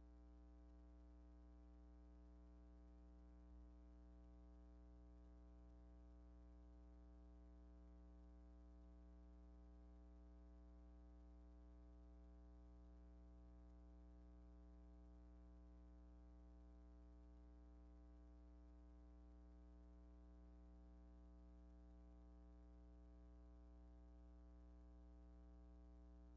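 Near silence: a faint, steady electrical hum, with one tiny click about three and a half seconds in.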